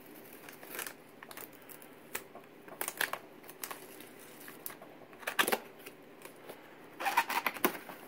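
Cardboard power-supply box being worked open by hand: scattered light clicks and scrapes of fingers on cardboard, then a cluster of louder scraping and crinkling about seven seconds in as the lid flap pulls free.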